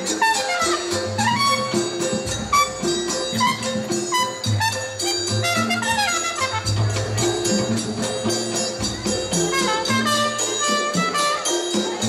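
Live ensemble music: rapid, steady beating on frame drums and small jingling percussion, with a wind instrument playing melodic lines that glide up and down in pitch.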